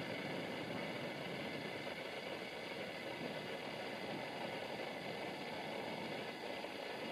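Distant diesel multiple unit running as it approaches, a steady even engine noise with no sudden sounds.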